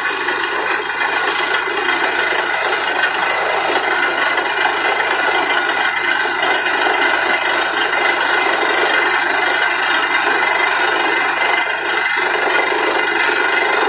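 Truck-mounted borewell drilling rig running under load while drilling: a loud, steady engine drone with a constant whine over it and no let-up.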